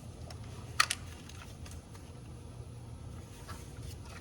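Light clicks and taps of hand tools working on engine parts, with a sharp double click about a second in, over a steady low hum.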